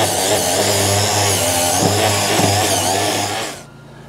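Small hand-held grinder running against the weld bead on a steel track frame. It grinds steadily, its pitch wavering with the load, and cuts off about three and a half seconds in.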